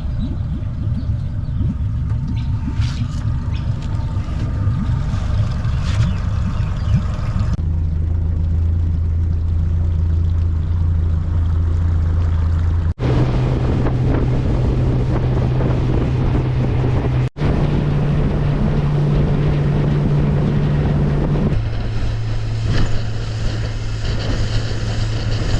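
Motorboat engine running under way, a steady low hum over wind and water rush. The engine's pitch changes at several abrupt cuts between clips.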